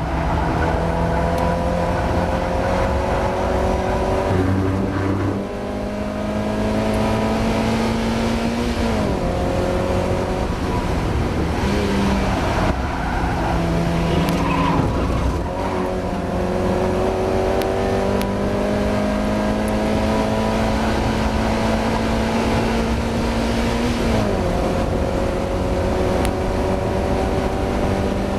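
Mazda MX-5 race car's four-cylinder engine under hard acceleration, heard from inside the car. Its pitch climbs steadily, then drops sharply at a gear change about nine seconds in and again near the end.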